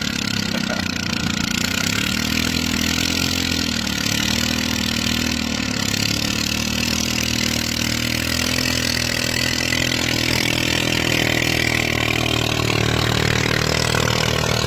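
Long-tail boat engine running, its speed rising and falling repeatedly and then holding steadier, as the long-shaft propeller churns through mud rather than water.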